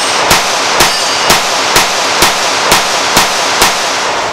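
Nighthawk Custom Fire Hawk .45 ACP 1911 pistol fired in a rapid string, eight shots at about two a second, with the echo of each report carrying on into the next.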